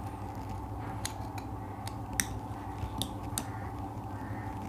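Faint scattered metal clicks of a small screwdriver tip working the body screw loose on an old, slightly rusty neon line tester, the sharpest click about two seconds in. A steady low hum runs underneath.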